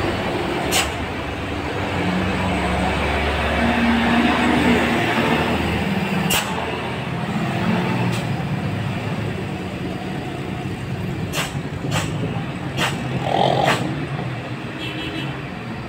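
Diesel engine of a Hino box truck pulling up a grade as it passes close by, over steady road traffic noise, with sharp clicks now and then.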